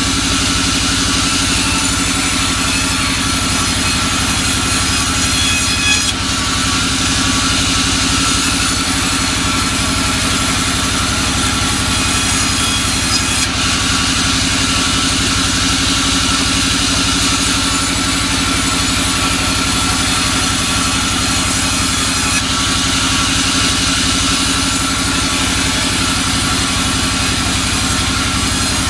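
Vertical bandsaw mill running steadily while ripping soft albasia wood into boards: a constant machine hum with a high blade hiss over it. The sound changes briefly three times, about six, thirteen and twenty-two seconds in.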